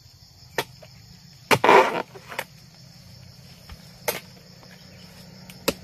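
A pole-mounted harvesting blade chopping into an oil palm's frond bases: about five sharp strikes spread over several seconds. The second strike is the loudest, followed by a short crunching rustle of fibre and frond, with insects buzzing faintly in the background.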